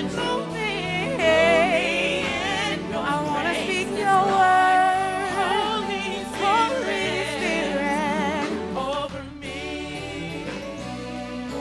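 Live gospel praise singing: women's voices with a wavering vibrato, backed by a band with bass guitar and drums. The music eases to a softer level about nine seconds in.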